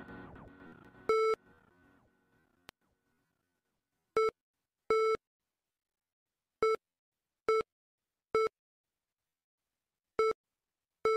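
Music fades out, then an electronic beep tone with overtones sounds eight times at uneven intervals, separated by silence. Two of the beeps are held slightly longer than the rest.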